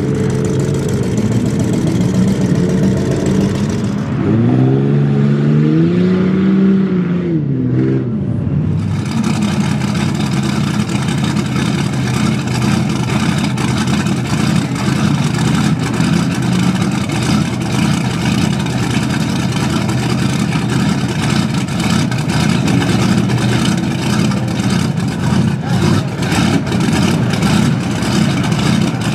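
Supercharged big-block Chevy engine of a mega truck running. About four seconds in it is revved up and back down a couple of times, then it settles into a steady idle.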